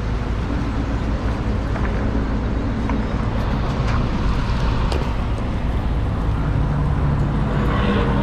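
Cat 308 mini excavator's diesel engine running steadily under load while the machine pulls a buried bypass pipe out of the ground.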